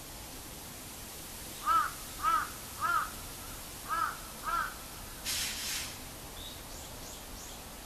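A crow cawing five times in a row, each caw a short arched call, followed by a brief rustling hiss and a few faint high chirps.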